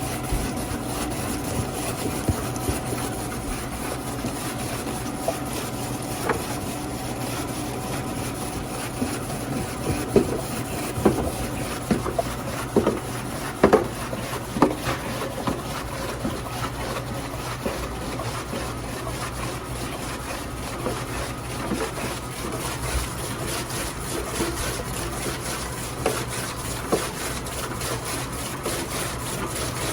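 Radish-slicing food machine running with a steady hum and a rasping, scraping cutting sound, with irregular sharp clacks and knocks that cluster in the middle and come again near the end.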